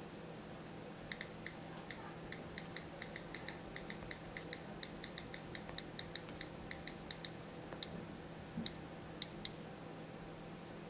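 Typing on an iPad's on-screen keyboard: a quick run of faint key clicks, several a second, that slows to a few scattered taps near the end, over a low steady hum.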